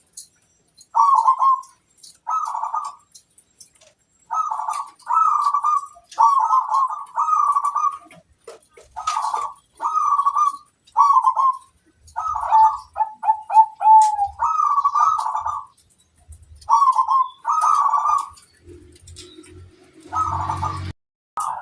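Zebra dove (perkutut) cooing: a string of short repeated coo phrases with brief pauses, including a quick run of short notes in the middle. A faint low rumble sounds under the last few calls.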